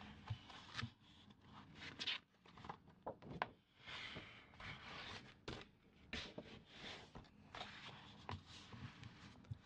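Scratching, tracing and brushing by hand across a paper calendar page: faint, irregular scraping strokes with a few sharper clicks.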